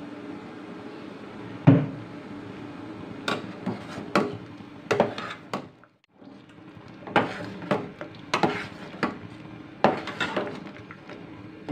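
Steel ladle stirring a metal cooking pot of simmering liquid and knocking against its sides: one sharp knock about two seconds in, then a run of clinks and scrapes, over a low steady hum.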